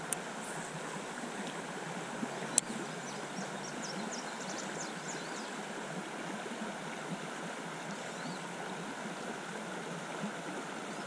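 Steady rush of river water running over a shallow rocky riffle, with a few faint high chirps and one sharp click about two and a half seconds in.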